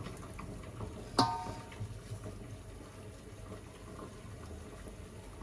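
A single sharp metallic clink about a second in, ringing briefly, as a marinated chicken leg is set onto a wire microwave grill stand over a steel plate; otherwise a low, steady background.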